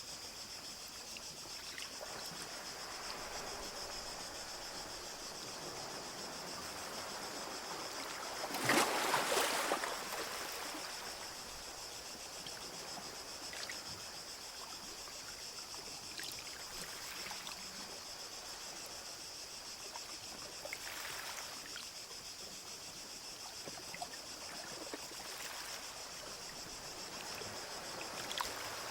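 Small sea waves lapping and washing on a beach, with one larger wave washing in about nine seconds in and lighter washes later.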